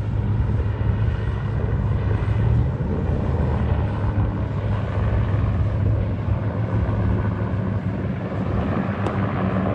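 Engine running steadily: a constant low drone with a rough noise over it that neither rises nor falls.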